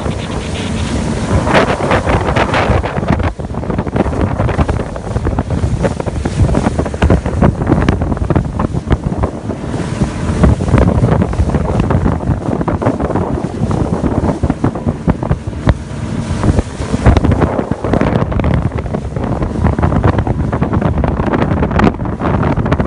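Loud wind buffeting the microphone on a rigid inflatable boat under way at sea, with its engine running and the hull slapping through the waves. The gusts rise and fall.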